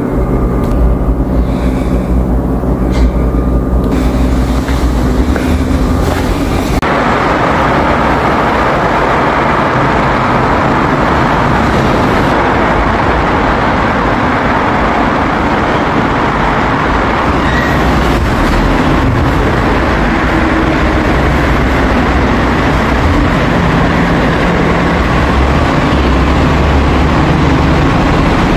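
Subway train running: several steady humming tones for the first few seconds, then, about seven seconds in, a dense steady rumble of the train on the track takes over.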